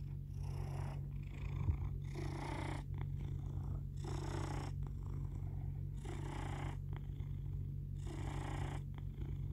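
Domestic cat purring steadily, held close to the microphone, with a breathy swell in the purr about every two seconds.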